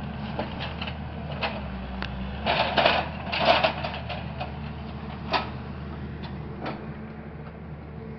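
An engine running steadily at a low, even pitch, with scattered sharp clicks and knocks over it and a louder burst of knocking and cracking about two and a half to four seconds in.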